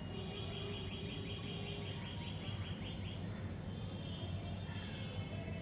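A bird's rapid trill of short, evenly repeated high chirps, about seven a second, lasting about three seconds, over a steady low hum.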